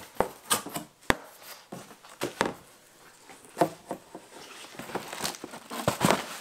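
Cardboard packaging being handled: a shipping box opened and the cardboard product boxes inside shifted about, giving irregular rustling and scraping with sharp knocks, one of them about a second in.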